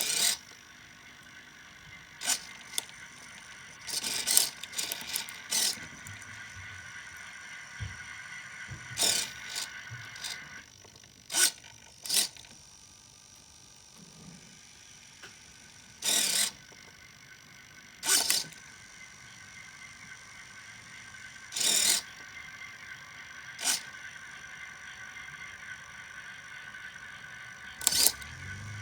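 Model railroad flood coal loader mechanism running: a small geared motor gives a steady high whine that stops for a few seconds midway and then resumes. Short clattering bursts come at irregular intervals about a dozen times, with a busier cluster a few seconds in.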